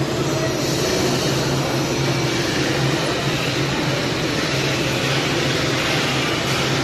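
Construction machinery engine running at a steady idle: a constant low hum over an even wash of noise.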